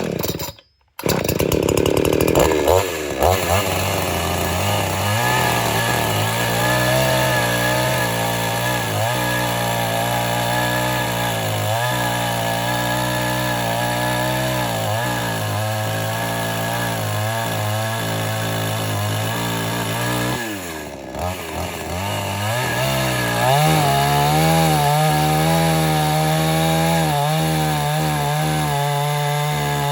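Chainsaw engine starting about a second in and running loud, its pitch repeatedly dipping and recovering. About two-thirds of the way through it falls away briefly, then runs on at a higher, steadier pitch.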